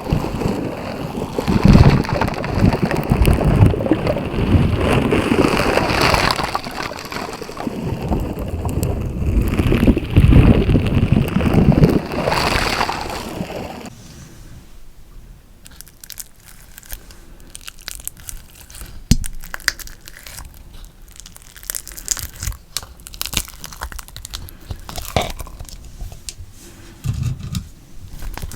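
Slime being squished and worked by hand, with wet squelching and crackling. It is loud for about the first half, then drops suddenly to quieter scattered small pops and clicks.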